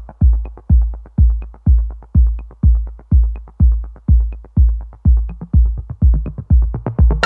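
Electronic background music: a steady kick drum about twice a second with light ticks between the beats.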